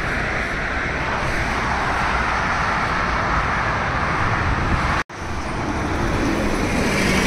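Steady roar of highway traffic passing below. About five seconds in it cuts off abruptly and is followed by the steady noise of an NJ Transit city bus running close by.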